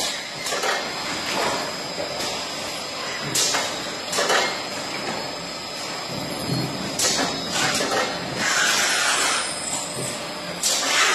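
Flow-wrapping packing machine running as it wraps pairs of kitchen paper rolls in film: a steady mechanical running noise with a faint high whine, broken by sharp clacks every one to three seconds and a longer noisy stretch near the end.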